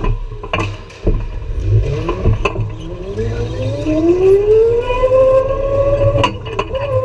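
Go-kart accelerating: a whine that rises steadily in pitch from about two seconds in and levels off near the end, over a low rumble, with a few sharp knocks along the way.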